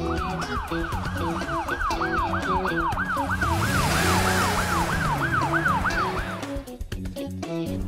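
Ambulance siren sound effect wailing fast, about three rising-and-falling sweeps a second, over background music. A hiss swells in the middle as the vehicle moves off, and the siren cuts off about six and a half seconds in.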